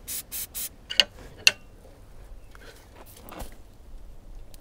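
Aerosol spray can hissing in several short bursts onto a seized front lower ball joint, then two sharp metal clinks about one and one and a half seconds in.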